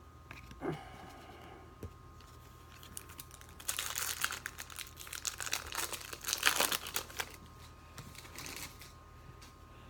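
Foil wrapper of a baseball trading-card pack crinkling as it is handled and opened, in a dense rustle lasting about three and a half seconds from roughly four seconds in, with a few light clicks before it.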